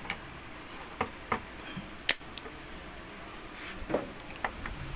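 Scattered light clicks and taps of small tools being handled on the amplifier: about five in all, the sharpest about two seconds in.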